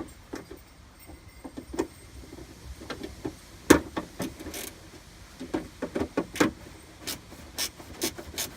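A 10 mm ratcheting wrench clicking in short, irregular strokes as it tightens a door-handle mounting bolt inside a truck door. A louder knock comes near the middle.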